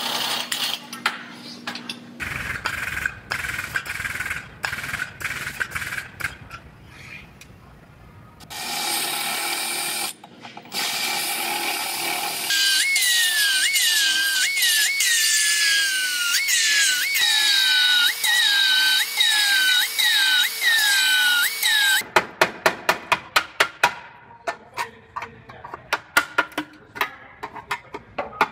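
Power tools cutting apart a car's damaged front frame rail and tie bar. Scattered clicks and short bursts give way to a hissing stretch, then to a tool whine that sags in pitch under load and snaps back up about once every second, over and over. It ends in a run of sharp taps, a few a second.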